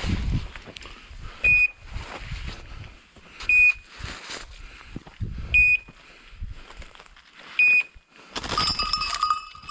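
Hunting dog's beeper collar giving one short, high beep every two seconds, the pattern typical of a beeper signalling that the setter is on point, with footsteps and brush rustling in between. Near the end a louder rush of noise with a held tone comes in.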